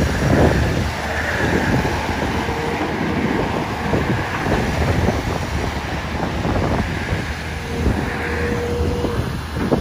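XCMG XE215C hydraulic excavator's diesel engine running steadily under working load as the machine swings and moves its boom and bucket. A faint thin whine comes in twice over the engine.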